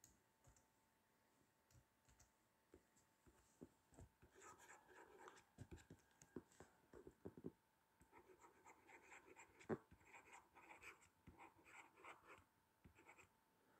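Faint scratching and light taps of a pen writing a word by hand, starting about four seconds in, with one sharper tap about two-thirds of the way through.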